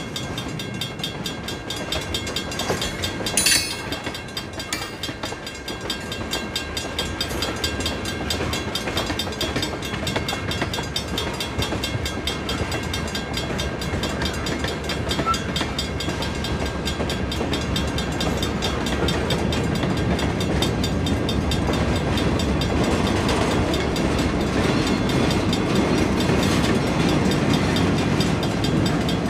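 Freight cars rolling slowly over a grade crossing, wheels clicking over the rail joints, while the crossing's mechanical bell rings steadily. There is one brief loud clank about three and a half seconds in. Near the end the rumble of the GP38-3 diesel locomotive grows louder as it reaches the crossing.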